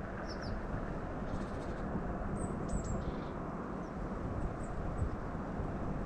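Steady low outdoor rumble with small songbirds giving several faint, brief, high chirps: a pair near the start, a few around the middle, and a few more near the end.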